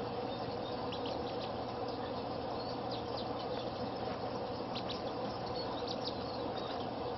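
Baby mallard ducklings peeping: many short, high peeps scattered irregularly, over a steady background hum.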